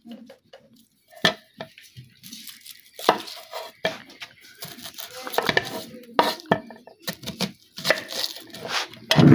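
Steel cleaver clicking and knocking against a wooden chopping board while an onion is peeled and trimmed, with the dry crackle of papery onion skin being torn. A heavier thump comes near the end.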